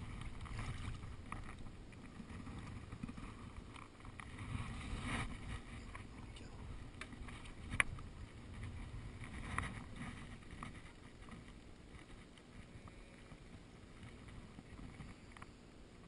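Water splashing and sloshing against a float tube: first a large wels catfish thrashing at the surface beside it, then lighter lapping. Wind rumbles on the microphone, and there is one sharp knock about eight seconds in.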